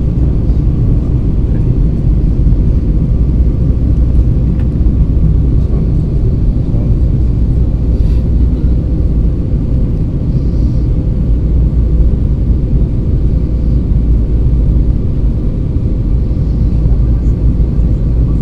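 Steady, loud cabin noise of an Airbus A320 in flight: an even rumble of engines and airflow heard through the fuselage, with a faint steady hum on top.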